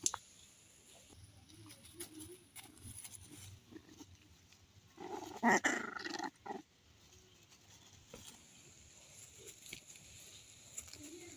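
A puppy and a grown dog playing, with a dog's vocal burst of about a second and a half starting a little past five seconds in. Small faint sounds of the play come before and after it.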